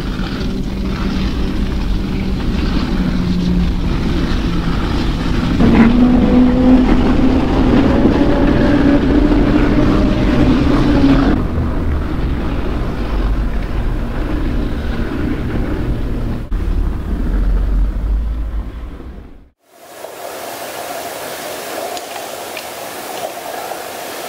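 Underwater hydrophone recording beneath lake ice of snowmobiles running on the ice: a steady engine drone, with one engine growing louder and higher about six seconds in and easing off a few seconds later. The drone cuts off abruptly about three-quarters of the way through, leaving a quieter, hissy underwater background.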